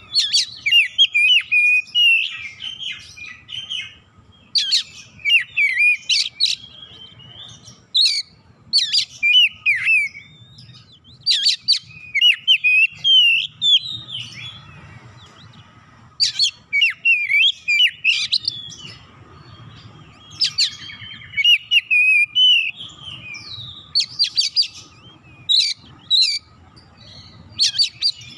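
Oriental magpie-robin singing: loud, varied phrases of whistles, warbles and sharp chips, delivered in bursts of a second or two with short pauses between.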